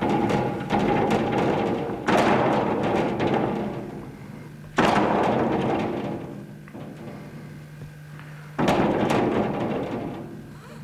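Building and its window panes rattling in sudden surges as volcanic tremor from Usu volcano shakes it. There are four jolts, each starting abruptly and ringing away over a second or two, over a steady low hum.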